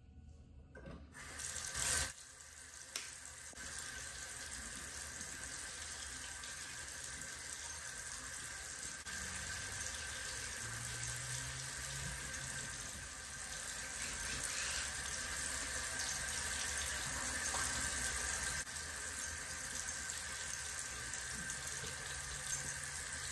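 Water tap running steadily into a bathroom sink, turned on about a second in.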